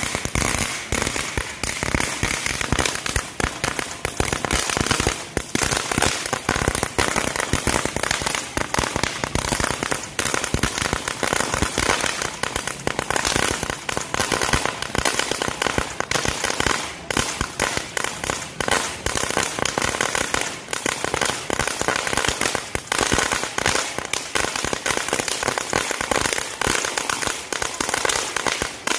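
A 'Gold House' ground fountain firework burning, spraying sparks with a dense, unbroken crackle of rapid tiny pops.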